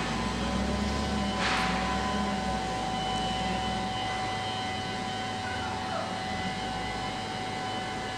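Volvo L60F wheel loader's diesel engine running steadily, with a steady high tone over it and a short hiss about a second and a half in.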